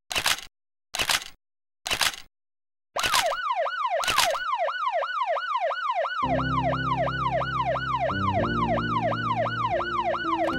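A camera shutter fires five times, about a second apart. Then a police car siren starts up in a fast yelp, about three quick sweeps a second. About six seconds in, low sustained background music chords come in under it.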